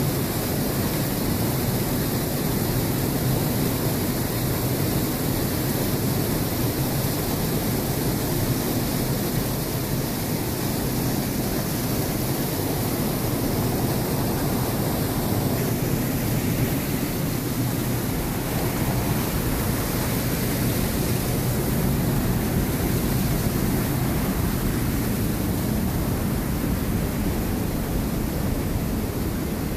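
Stream water rushing steadily beneath a metal grating where the water drains away, an even, unbroken rush of noise.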